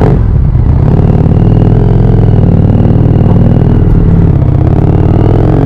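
Harley-Davidson Street 750's liquid-cooled V-twin running through an aftermarket, non-stock exhaust as the bike is ridden. The engine note holds fairly steady, then climbs in pitch near the end as it accelerates.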